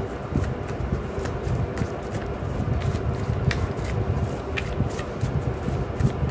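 A deck of tarot cards being shuffled by hand: a run of soft, irregular card flicks and slaps.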